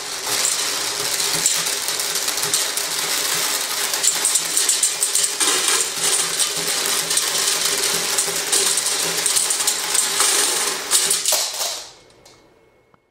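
A long string of beads sliding off a table and pouring into a clear jar below: a continuous fast rattling clatter that stops suddenly about twelve seconds in, when the last beads have fallen.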